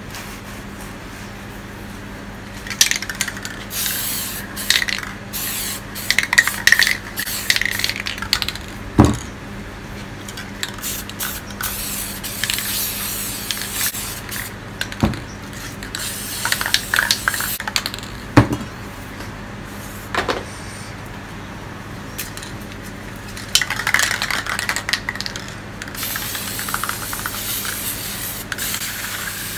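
Aerosol spray paint cans hissing in repeated short bursts and sweeping passes, ending in a longer continuous spray, with a few sharp knocks in between.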